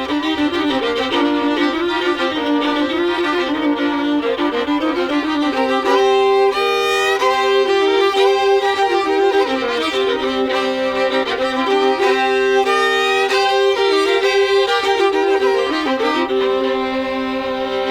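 A Cajun fiddle tune played with long bowed notes, often two notes sounding together, some with a wavering vibrato. The playing stops near the end.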